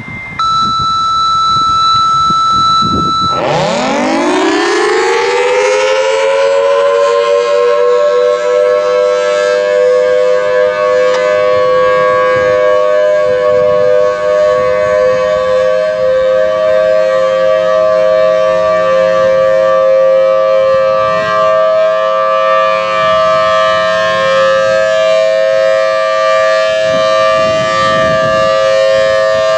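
Two steady radio tones, a short higher one and then a lower one for about three seconds. Then a Federal Signal Thunderbolt 1003 dual-tone rotating siren winds up from a low growl to full pitch over a few seconds and holds a loud, steady two-note wail: the steady alert signal used for a tornado watch.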